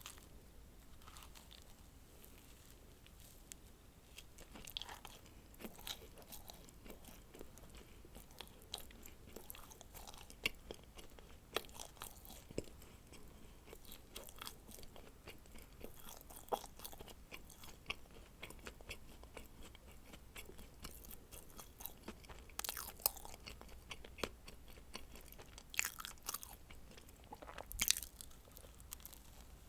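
Close-miked eating of dacquoise: bites and chewing with small, crisp crackles from the meringue-like shell, irregular throughout, a few louder crunches near the end.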